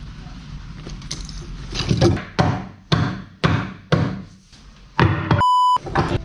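A wooden stick striking a bundle of denim jeans on a table: about six hard whacks, roughly half a second apart, followed near the end by a short, steady electronic beep.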